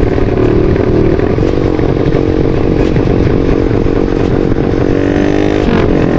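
Yamaha Vixion single-cylinder four-stroke engine, bored up to about 200 cc, running hard under the rider at road speed. The revs hold fairly steady, then dip and pick up again briefly near the end.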